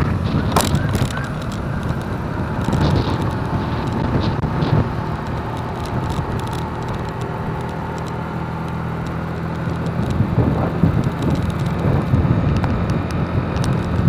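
Motorcycle riding in city traffic: the engine runs at a steady speed amid road and traffic noise. Wind buffets the microphone, growing stronger near the end.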